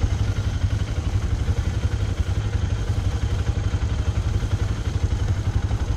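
Quad bike (ATV) engine running steadily, a low, even rumble with no revving.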